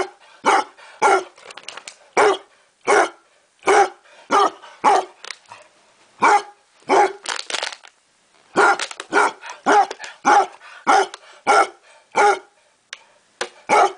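Basset hound barking over and over, single barks roughly two a second, with a brief pause about eight seconds in.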